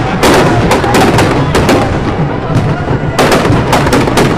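Firecrackers packed inside a burning Ravan effigy bursting in an irregular string of sharp bangs, several a second at times, over the crackle and din of the blaze and crowd.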